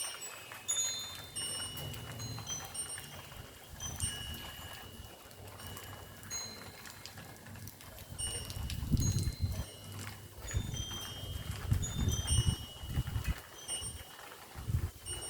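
Wind chime tinkling, with scattered single ringing notes as the breeze moves it. From about halfway through, a low rumble comes and goes underneath.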